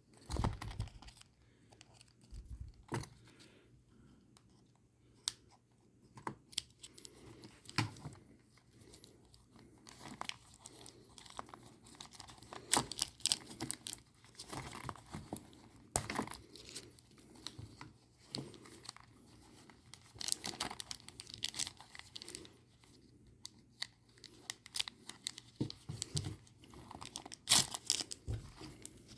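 Scissors snipping and hands tearing open and crinkling the packaging of a mystery blind-bag toy, in scattered short rustles and clicks with pauses between.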